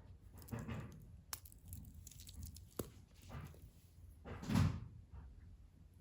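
A few knocks and clicks with short rustling, clattering handling noises, the loudest about four and a half seconds in.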